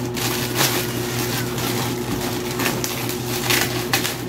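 Black plastic parcel wrapping rustling and crinkling in irregular short bursts as it is handled, with scissors cutting into it near the end, over a steady low hum.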